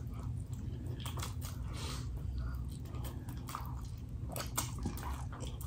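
A person chewing a mouthful of noodles close to the microphone, with many short wet mouth clicks.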